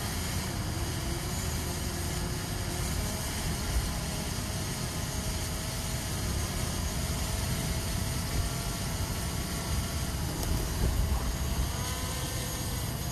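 Faint whine of a quadcopter drone's motors, gliding up and down in pitch and rising near the end, over a steady low rumble of wind on the microphone.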